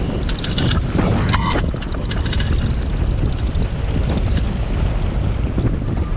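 Heavy wind buffeting the microphone of a cyclist riding at speed, a dense low rumble throughout. A few clicks and a brief high tone sound about a second in.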